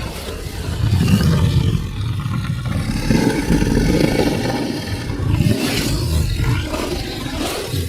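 Cartoon monster roar sound effect: long, loud, low growling roars of the kind used for dinosaurs, dragons and fictional monsters, with a brief break about five and a half seconds in before the roaring resumes.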